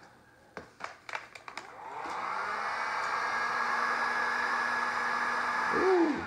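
Handheld electric heat gun: a few light handling clicks, then the gun is switched on about two seconds in and runs steadily, its fan blowing with a faint whine, until it is switched off near the end and winds down with a falling pitch.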